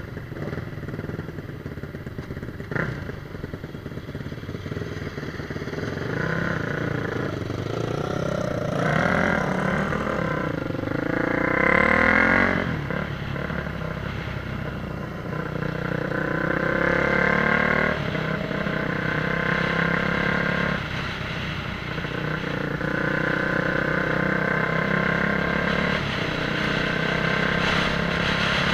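Motorcycle engine running under load, revving up and down as the bike accelerates and eases off, loudest about twelve seconds in.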